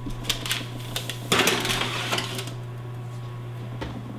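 A metal baking tray slid onto the wire rack of a hot wall oven: a few light clicks, then a second or so of scraping and clattering of metal on metal, over the oven's steady low hum. The oven door starts to swing shut near the end.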